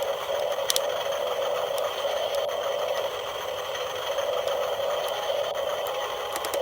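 Small electric gear motors of a 7.2 V RC mini excavator whirring steadily, with a few sharp clicks near the start and end.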